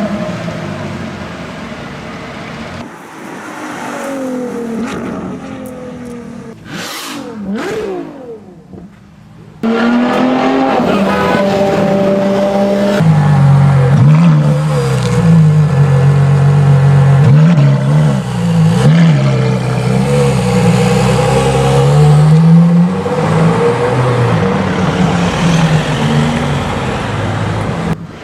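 Ferrari LaFerrari's V12 engine revving and accelerating. Fairly quiet, with the pitch gliding up and down, until an abrupt jump about ten seconds in. It then runs loud and sustained, its pitch rising and dipping again and again as the revs climb and fall.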